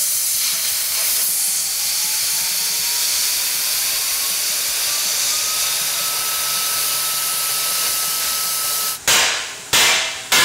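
Miller Spectrum 625 X-TREME plasma cutter cutting through the rusted steel end of a lawn roller, a loud steady hiss of the air-plasma arc. A faint tone rises slowly under the hiss. The hiss stops about nine seconds in and is followed by three short, loud bursts.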